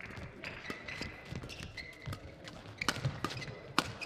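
Badminton rally: sharp cracks of rackets striking the shuttlecock, coming quicker in the second half, with shoes squeaking briefly on the court mat and footsteps thudding.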